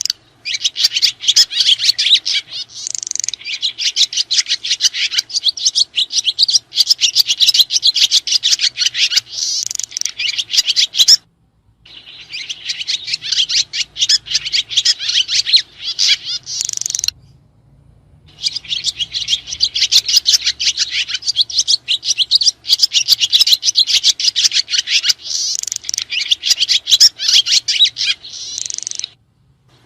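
Swiftlets (burung sriti) twittering: dense, rapid, high-pitched chirps in long runs, broken by short silences about 11 and 17 seconds in and just before the end.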